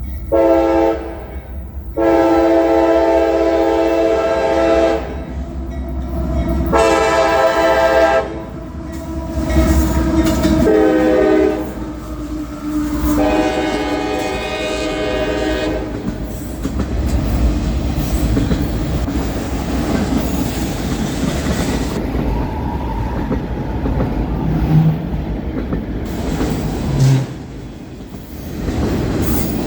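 CSX freight locomotive's air horn blowing a series of blasts: a short toot, then long, long, short, long, the grade-crossing signal. The locomotives then pass close by with a heavy rumble, and the freight cars follow with wheels clattering over the rail joints.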